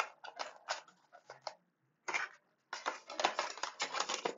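Cardboard product packaging being handled: a box and its sleeve sliding and rubbing against each other, in short scrapes and taps, a brief pause in the middle, then steadier rubbing near the end. Picked up through the earbuds' own microphone.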